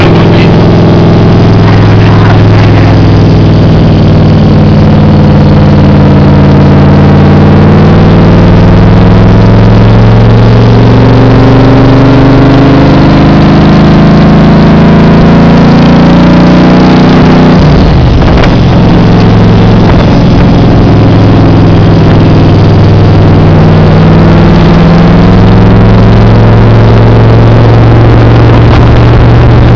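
Cobra roadster's V8 engine pulling at road speed, its note rising and falling with the throttle, with a break in the note about eighteen seconds in, heard from the open cockpit with wind rushing past.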